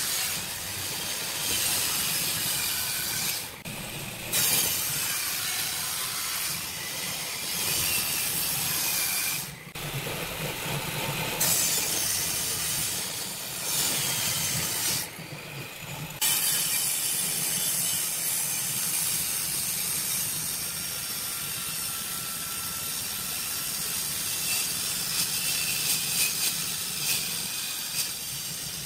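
Wood being cut by a power woodworking tool: a steady, hissing cutting noise that breaks off briefly three times.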